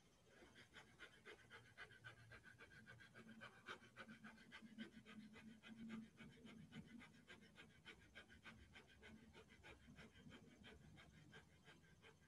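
Faint Breath of Fire breathing: a long run of rapid, evenly spaced, forceful breaths through the nose, several a second.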